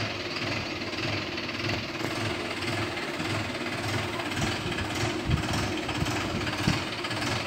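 Tractor diesel engine chugging at low speed as it hauls a water-tanker trailer slowly along the lane, with two sharp knocks in the second half.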